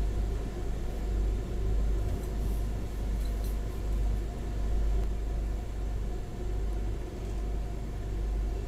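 Steady low rumble and drone of a Pesa 218Mc diesel train running along the track, heard inside the passenger cabin, with a few faint high ticks a couple of seconds in.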